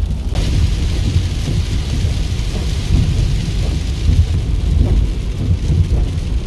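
Heavy rain hitting a car's windshield and body on a wet highway, heard from inside the cabin: a steady hiss of rain over a dense low road-and-tyre rumble.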